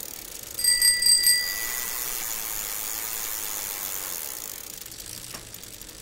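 Bicycle bell rung in a quick run of several strikes about half a second in, its ring fading out within the next second. A faint steady hiss follows.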